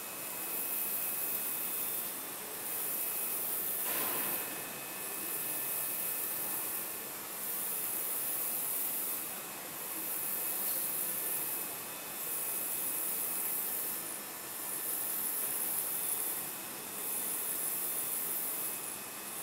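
UV LED flatbed printer running: a steady high hiss with faint whining tones that swells and dips about every two seconds as the print carriage passes back and forth over the tiles. A short knock comes about four seconds in.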